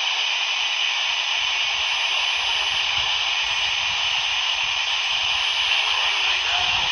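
Steady static hiss from a handheld walkie-talkie's speaker, tuned in upper sideband to the 11-metre CB band, with a faint thin whistle above it.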